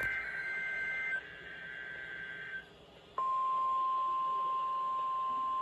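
NOAA Weather Radio test signal. The last of a SAME digital header ends as a two-tone data warble, and after a brief gap the steady 1050 Hz warning alarm tone starts about three seconds in and holds: the alarm that activates weather radio receivers during the weekly required test.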